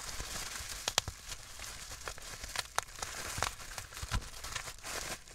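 Bubble wrap and thin plastic wrap crinkling and rustling as they are pulled open by hand from around a slime container, with sharp crackles throughout.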